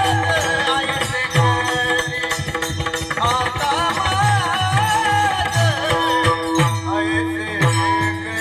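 Marathi devotional bhajan: a male voice sings a wavering, ornamented melody over a steady held drone. A mridang (pakhawaj) accompanies it with deep bass strokes that slide down in pitch, and sharp clicking strokes run throughout.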